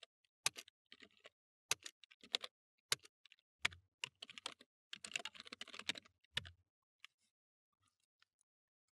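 Typing on a computer keyboard: irregular keystrokes in short runs, with a quicker run of typing about five seconds in, thinning to a few scattered taps after about six and a half seconds.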